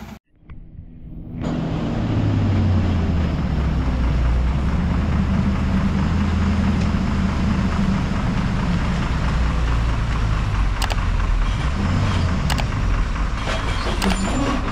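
Heavily loaded Ashok Leyland truck's diesel engine labouring under load on a steep climb, a steady deep drone that comes in after a brief silence about a second in. A few short clicks sound near the end.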